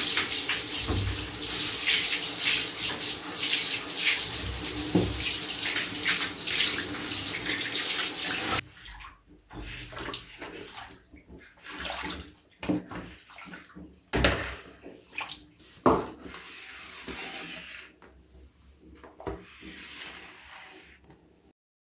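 Water running steadily as a loud hiss, which cuts off suddenly about eight and a half seconds in. After it come quieter scattered knocks and clatter.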